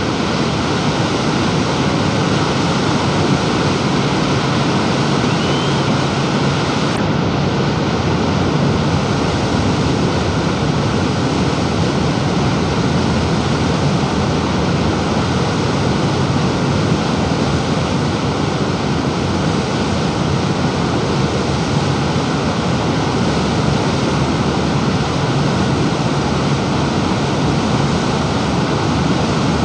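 Loud, steady rushing roar of water, even and unbroken throughout.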